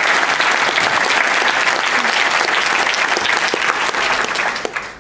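A large audience applauding steadily, the clapping thinning out and dying away near the end.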